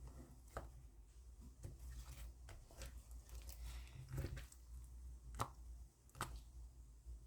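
Slime being squished and pressed by hand: faint, irregular squishes and small clicking pops, a few louder ones past the middle.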